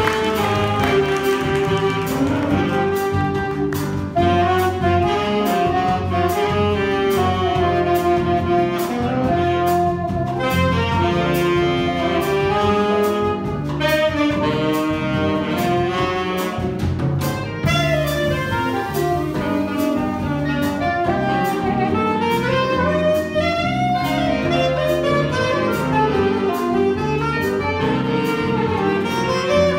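Small jazz ensemble playing a bossa nova: a reed melody line over piano, electric guitar, electric bass and drum kit, with an even ticking cymbal pattern.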